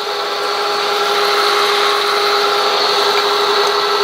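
Bridgeport J-head milling machine running steadily, its belt-driven spindle drive making a constant whine with several held tones over a mechanical hum.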